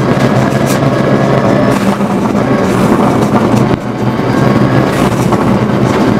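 Rally car engine running hard under load, heard from inside the cabin, with a brief dip in the engine sound just before four seconds in.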